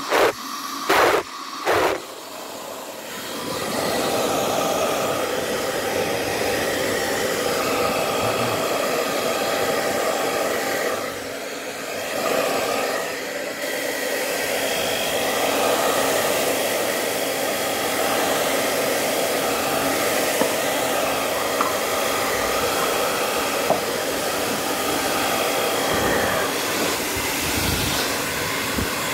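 A few clicks, then a 2500 W Powertec TR-901 hair dryer starts and blows steadily, a loud whoosh with a steady motor hum. It dips briefly about a third of the way in, then runs on.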